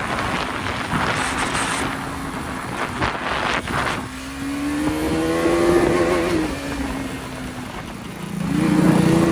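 Motorcycle engine pulling under throttle: its note climbs and holds, drops back about seven seconds in, then climbs again near the end.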